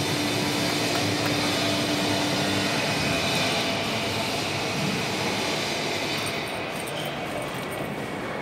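Steady background noise of a large busy indoor hall, an even hiss with a faint steady hum for the first few seconds, easing a little after about six seconds.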